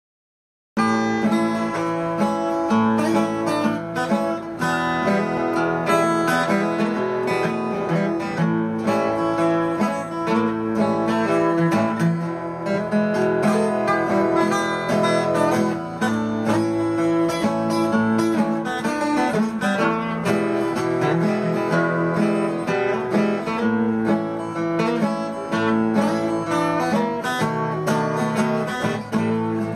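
Acoustic guitar music, starting just under a second in.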